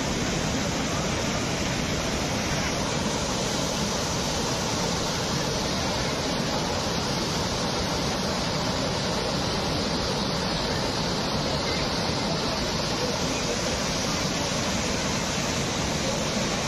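Muddy flash floodwater from a cloudburst rushing in a torrent over a road, a steady, unbroken rush of water.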